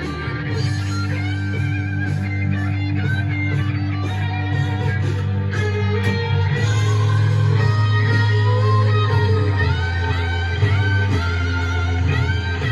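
Electric guitar music with bass: sustained low notes under a lead line with string bends and slides.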